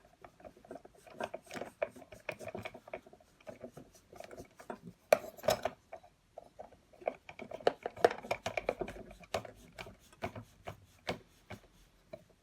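Small metal and plastic parts of a pedestal fan motor being handled: rubbing and scraping with many light clicks and taps, loudest about five seconds in.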